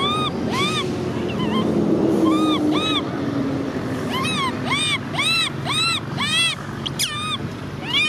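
Baby macaque crying: a string of short, high-pitched whimpering calls, each rising and falling, several a second. The calls thin out for a few seconds and then come fast again from about four seconds in. A low rumble runs underneath, loudest about two seconds in.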